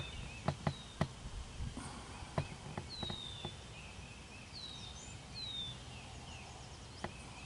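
Quiet outdoor ambience with small birds giving short, falling whistled calls several times, and a handful of sharp clicks in the first second or so and again near the end.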